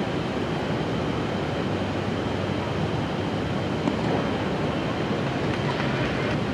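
Steady ballpark crowd murmur from the stands, with one short pop about four seconds in as the pitch hits the catcher's mitt.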